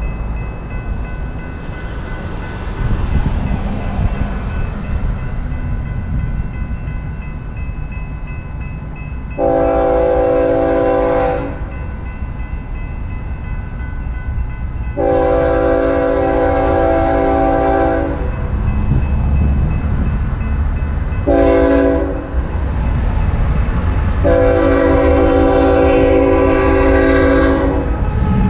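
A BNSF GE freight locomotive's Nathan K5HL five-chime horn sounds the grade-crossing signal, two long blasts, one short and a final long one, over the low rumble of the approaching train. Before the horn, a crossing bell rings faintly.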